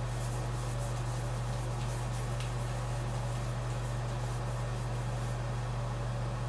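Steady low mechanical hum filling the small tiled bathroom, with a few faint light ticks in the first couple of seconds and again around four to five seconds in.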